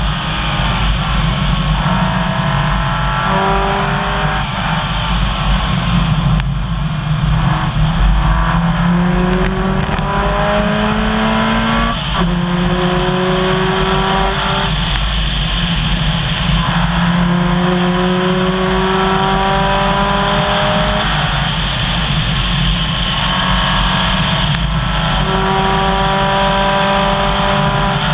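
Subaru rally car's flat-four engine driven hard, its pitch climbing through each gear and dropping sharply at each upshift every few seconds. Under it runs a steady rush of gravel and tyre noise.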